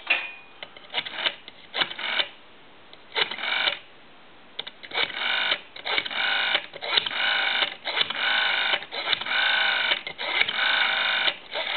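Rotary dial of an ITT desk telephone being wound and let go again and again to dial numbers, clicking as it runs back: a few scattered clicks at first, then a long, close run of them from about halfway in.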